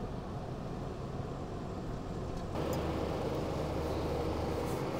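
Chevrolet Colorado ZR2 AEV Bison pickup driving on a dirt track, a steady engine and road rumble. About halfway through, the sound changes abruptly to a louder, steadier engine hum.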